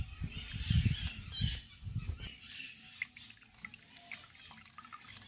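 Freshly boiled water being poured over ground coffee to brew it, with trickling and dripping. Low thumps sound through the first two seconds or so.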